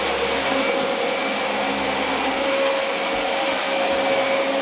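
Vacuum cleaner running steadily: a constant rush of air with a steady motor whine.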